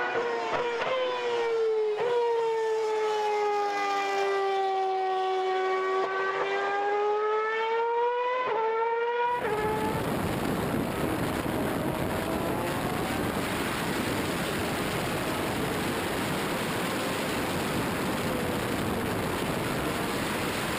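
Force India VJM05 Formula 1 car's 2.4-litre Mercedes V8 running at high revs on track. Its pitch sags and climbs again, with sharp steps at the gear changes. About nine seconds in, it cuts to a dense, even rush of wind noise over an onboard camera, with the engine hardly heard.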